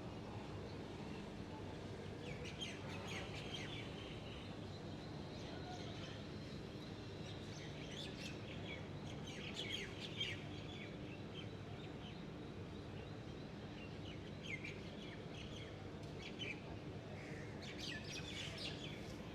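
Birds chirping in scattered clusters of short, high calls over a steady low background rumble.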